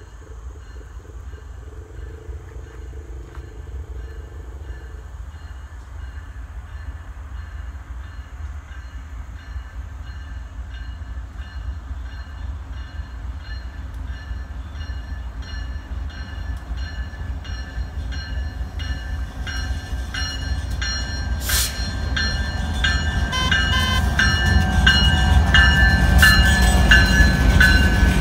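BNSF freight train's diesel locomotives approaching a grade crossing, their low rumble growing steadily louder and loudest near the end as the lead unit arrives. A crossing bell rings steadily over it.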